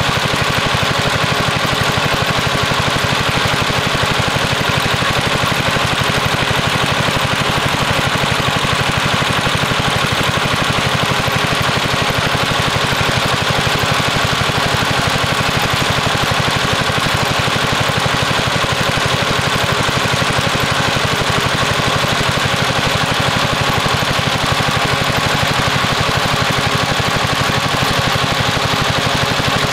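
8-horsepower single-cylinder gas engine running at a steady speed, driving a large fan.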